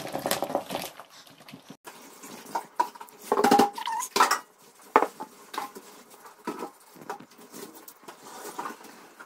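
Chopped food tumbling into a large mixing bowl, with small plates clattering and scraping against the bowl as powders are tipped in: irregular knocks and rustles, busiest in the first second and again around the middle.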